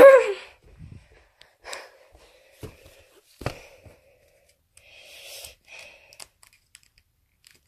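A short voiced exclamation at the start, then scattered knocks, bumps and a brief rustle from a handheld phone being moved and tipped about, settling to quiet near the end.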